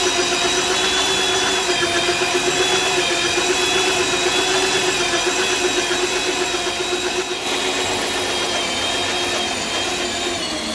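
Heavy electric drill boring through a truck's steel chassis frame rail: a steady motor whine whose pitch wavers slightly as the bit cuts, easing a little about seven and a half seconds in.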